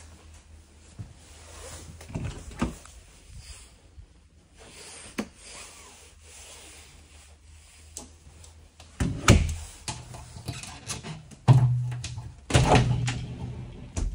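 A curved shower door and other doors being handled: scattered light clicks and knocks, then louder knocks, rattling and rubbing over the last five seconds as the shower door is opened by its handle.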